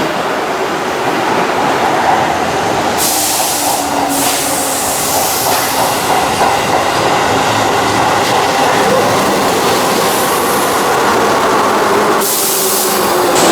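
A Keihan electric train running along the rails, a steady rumble with faint motor tones, broken by a burst of hiss about three seconds in and again near the end.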